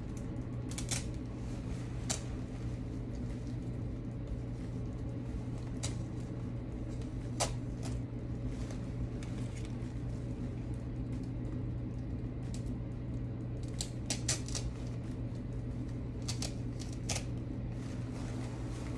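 A steady low hum, with about eight scattered sharp clicks and snips from artificial flower stems being handled and worked into a foam flower ball.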